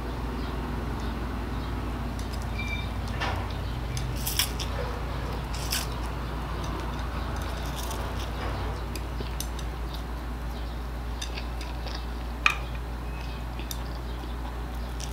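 A person eating instant noodles with chopsticks, making close mouth sounds of slurping and chewing. Scattered short clicks and smacks are heard, the sharpest near the end, over a steady low hum.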